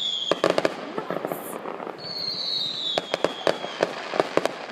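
Fireworks going off: a high whistle that slowly falls in pitch, followed by a quick string of sharp crackling pops. This happens twice, the second whistle about two seconds in, with its pops a second later.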